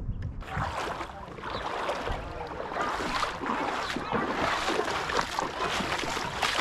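Wind buffeting the microphone while small waves lap and crackle over a pebble shore, with faint voices in the background.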